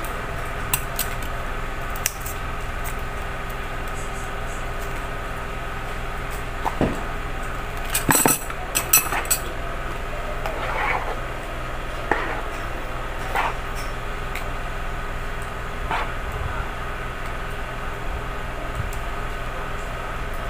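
Metal spoons clinking and scraping against small plastic cups and a plastic tub as fruit salad is spooned out, in scattered taps with a louder flurry of clatter about eight seconds in. A steady hum runs underneath.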